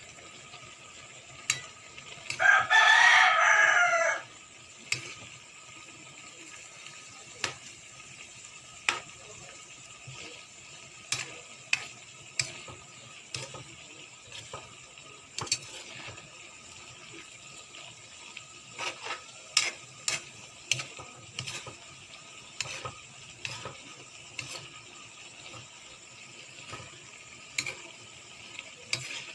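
A rooster crows once, loudly, about two and a half seconds in. Around it, a spatula knocks and scrapes against the pan in short sharp clicks as vegetables and tofu are stir-fried.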